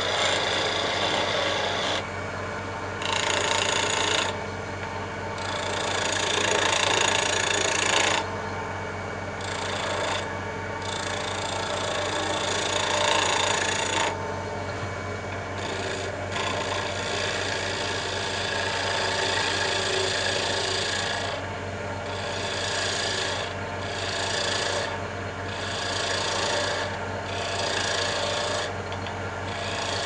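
Skew chisel cutting a spinning myrtlewood cylinder on a Delta 46-460 wood lathe: a steady scraping shave of wood over the constant hum of the lathe motor. The cut breaks off for a moment several times as the tool is lifted away, with short breaks coming more often near the end.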